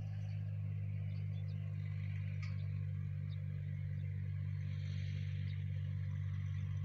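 Tractor engine running steadily at constant revs while it pulls a hay tedder, heard as an even low drone.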